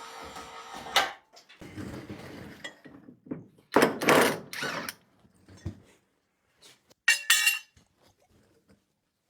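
Hand tools and metal parts clattering and knocking in a workshop, with a ringing metal clink about seven seconds in. A steady motor hum runs at the start and cuts off about a second in.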